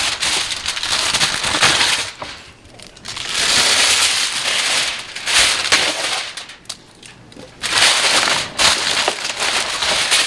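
Aluminum foil crinkling and crackling as it is pressed and crimped down over the rim of a foil pan, in three spells with short pauses between them, about 2 and 6 seconds in.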